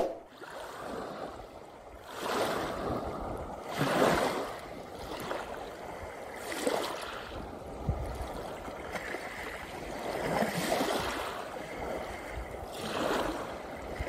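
Small waves washing onto a pebble beach, each swell of surf rising and falling every two to three seconds. A brief sharp click at the very start.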